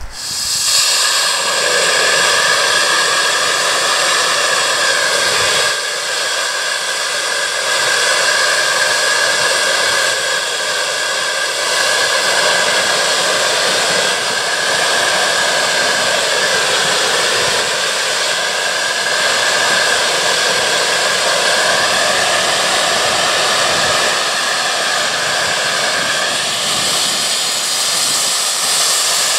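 Boiler blowdown on a 1.5-scale live steam locomotive: steam and water blasting out of the opened blowdown valve on the mudring, emptying the boiler at under 40 psi. It starts suddenly as the valve opens and goes on as a loud, steady hiss with a wavering tone in it.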